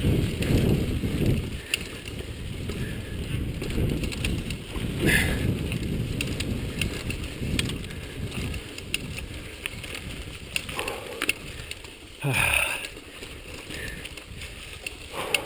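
Chumba VF2 mountain bike rolling over rocky dirt singletrack: tyres crunching over the ground and the bike rattling over bumps, with wind on the microphone. Loudest near the start, with a short louder burst about twelve seconds in.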